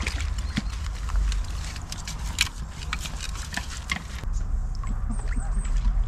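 Wind buffeting the microphone with a steady low rumble, over a run of sharp clicks, rustles and light splashes as a caught fish is landed and handled. A few short high chirps come about five seconds in.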